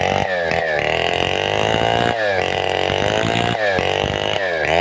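Stihl 070-type two-stroke chainsaw running at high revs while milling, its engine speed dipping sharply and climbing straight back up several times.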